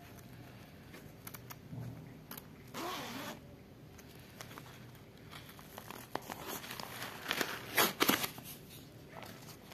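Zipper of a plush pencil case being pulled open, with rustling of the fluffy fabric as it is handled; the loudest zipping comes in a few quick strokes about seven to eight seconds in.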